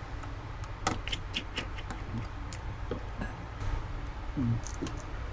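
Small irregular clicks and ticks of a precision screwdriver working the screws out of a Redmi Y2 smartphone's frame, a cluster in the first couple of seconds and a few more near the end, over a steady low hum.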